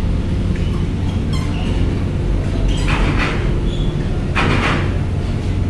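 Cars rolling off a ferry over a steel loading ramp, their wheels clattering on the ramp plates twice, about a second and a half apart. A steady low machinery hum runs underneath.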